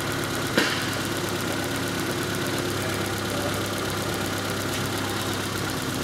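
1988 Honda Civic's 1.5-litre four-cylinder engine idling steadily, while a failing igniter limits the ignition coil's current. A single short click about half a second in.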